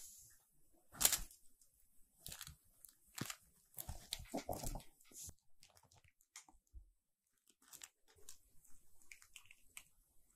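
A cat playing with a feather wand toy: irregular rustles, soft thumps and crunchy scratches as it pounces and grabs, busiest in the first five seconds and sparser after.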